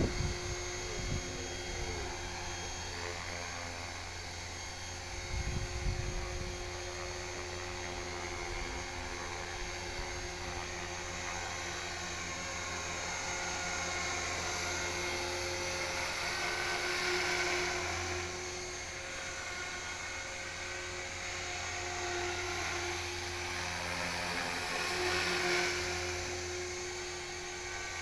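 HK-450GT electric RC helicopter in flight: the steady whine of its brushless motor and spinning rotor, with small swells in loudness about two-thirds of the way in and again near the end.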